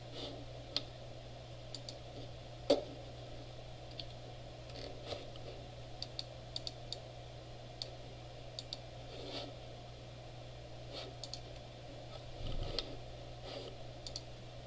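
Scattered clicks of a computer mouse and keys, some coming in quick pairs and runs, over a steady low electrical hum.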